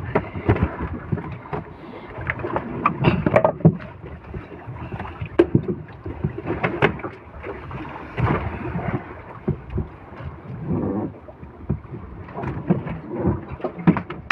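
Irregular knocks and thumps in a small fishing boat's hull as a caught tuna is handled and stowed, over a steady rush of wind and water.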